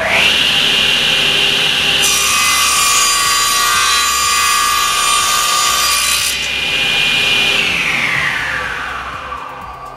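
SIP 01332 10-inch cast iron table saw comes up to speed at once with a steady high whine, its blade tilted for a mitre cut. From about two to six seconds in, the blade cuts through a wooden board with a loud rasping hiss. Near the end the whine falls steadily in pitch as the blade spins down.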